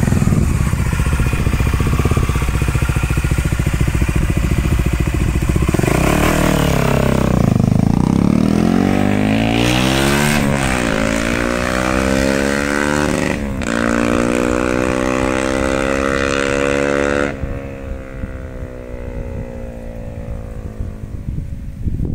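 Honda XR 250 Tornado's single-cylinder four-stroke engine through a Belparts aftermarket exhaust: a low steady rumble, then revving and pulling away, the pitch climbing and dropping at gear changes about ten and thirteen seconds in. Near the end the throttle closes, it gets quieter and the pitch sinks slowly as it slows.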